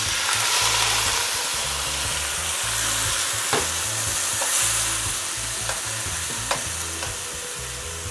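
Chopped seasoning and string beans hitting hot oil in a pot, sizzling loudly from the moment they land and easing off slowly, while a spoon stirs them and clicks against the pot a few times.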